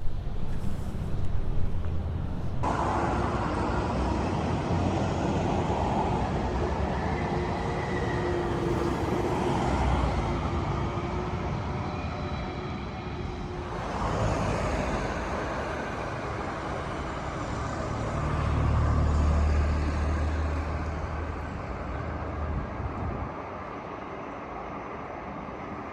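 Street traffic noise: vehicles running and passing, with a low rumble that swells and fades about two-thirds of the way through.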